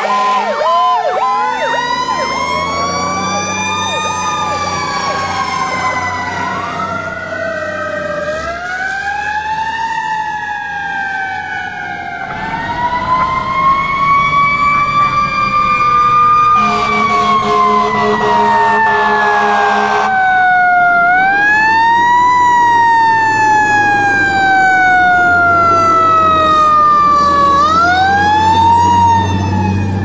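Several emergency-vehicle sirens wailing at once, their pitches rising and falling slowly and overlapping, over a low vehicle rumble. Just past the middle, a steady horn blasts for about three seconds.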